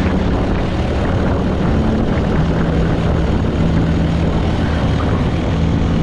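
Loud steady rushing noise with a low droning hum underneath that shifts pitch a few times.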